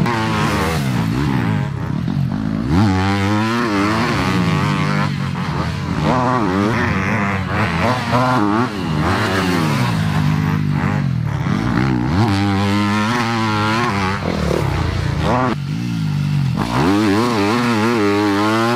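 Yamaha four-stroke motocross bikes being ridden hard, revving up through the gears and dropping off the throttle again and again as they pass. The engine pitch climbs and falls over and over.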